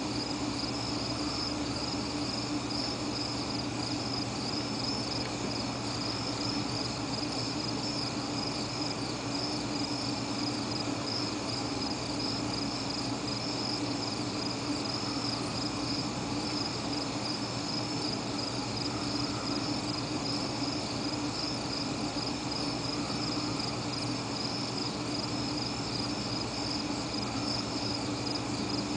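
Steady chorus of crickets chirping in the night, a continuous high trilling pulse that does not let up.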